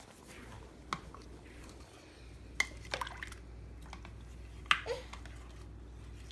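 A spatula stirring a potato and broth soup base in a crock pot, the liquid moving, with a few sharp knocks of the utensil against the pot, the loudest nearly five seconds in.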